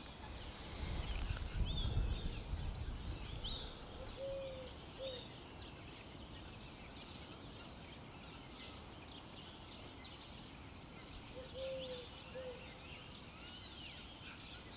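Small birds singing and chirping on the riverbank, with a lower two-note call heard twice, and a low rumble in the first few seconds.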